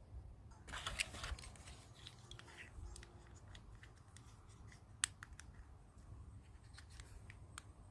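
Small objects being handled at close range: a short rustle about a second in, then scattered light clicks and taps, with one sharper click about five seconds in.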